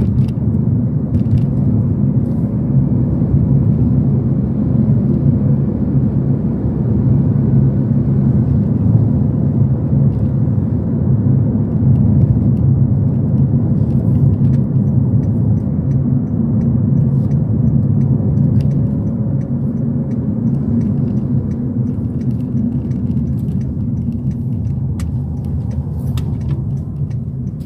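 Car driving along the road: a steady low rumble of engine and tyre noise, with a few faint ticks.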